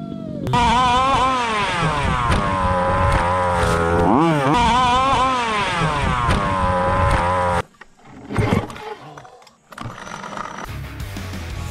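Small two-stroke engine of a gas-powered 1/5-scale RC car revving up and down in quick rises and falls for about seven seconds, then cutting off abruptly. After a short knock and a brief gap, an engine runs steadily again near the end.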